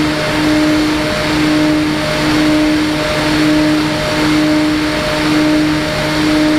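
Steady loud static hiss with a low electrical hum, and a buzzing tone that pulses on and off about once a second, typical of the audio channel of an analog FPV video receiver.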